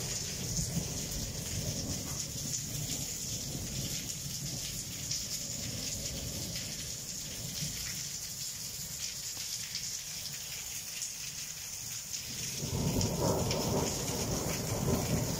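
Heavy rain pouring down, a steady hiss throughout. About thirteen seconds in a louder low rumble rises under the rain and holds to the end.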